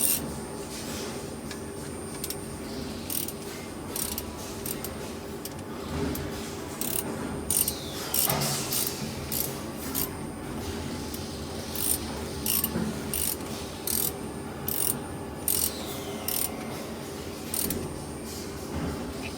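Camless CNC spring-forming machine during setup: a steady machine hum with irregular sharp metallic clicks and ticks, and twice a short whine that falls in pitch.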